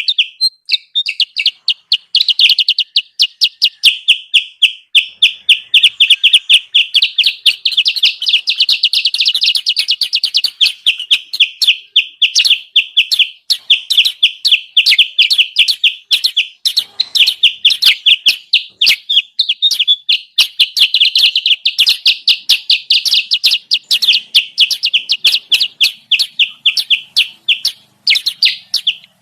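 Bird lure call for the kutilang sutra: a continuous, agitated run of short high chirps, several a second, with no break.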